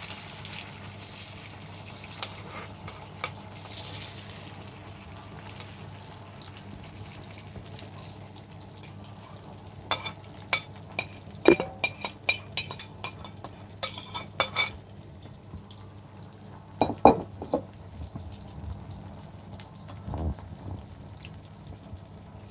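Beaten egg mixture sizzling in hot oil in a small nonstick frying pan. About ten seconds in, a metal spoon scrapes and taps quickly against a ceramic plate for a few seconds, with a few more clinks of the spoon later.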